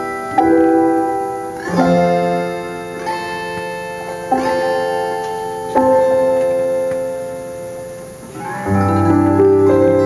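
Live band instrumental played on an electric piano-toned keyboard, slow chords struck about every second and a half and left to ring and fade; near the end a fuller chord with low bass notes comes in.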